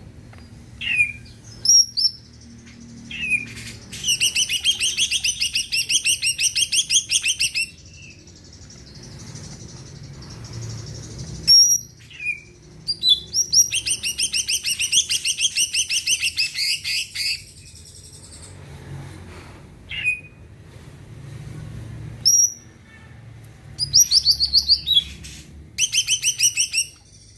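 Cucak ijo (green leafbird) singing: single sharp whistled notes between long rapid trills of evenly repeated notes, about six a second, each trill lasting three to four seconds, with shorter trill bursts near the end.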